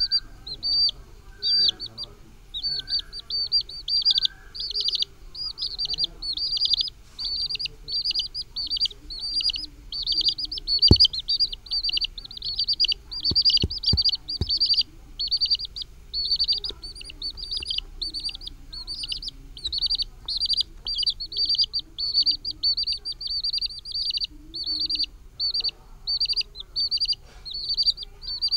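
Young chicks peeping: a continuous run of rapid, high-pitched cheeps. A few short thumps sound near the middle.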